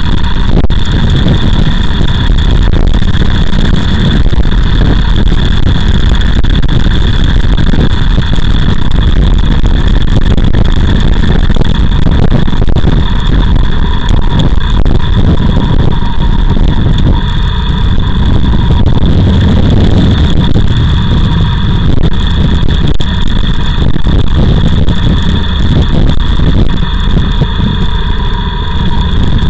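Motorcycle on the move, its engine running steadily under heavy wind rush on the camera microphone.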